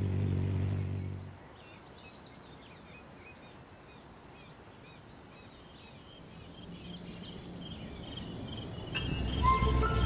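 Rainforest ambience: a steady high insect trill with scattered small bird chirps. A low hum stops about a second in, and music begins to swell near the end.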